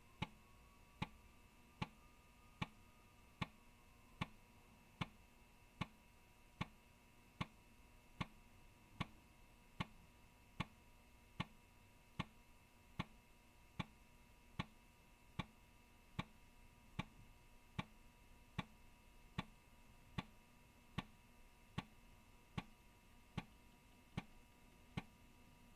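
Alps 3.5-inch floppy drive reading a disk track by track: the head steps with a sharp tick about every 0.8 seconds, one tick per track, over the faint steady whine of the spinning drive.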